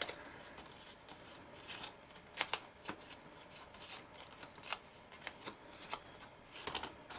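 Stiff painted craft panels handled and folded flat in the hands, giving scattered light clicks and taps as the panels knock together, with a louder cluster about two and a half seconds in and again near the end.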